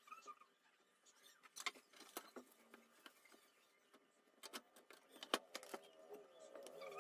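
Faint, scattered clicks and taps of small parts being handled, the sharpest about five seconds in.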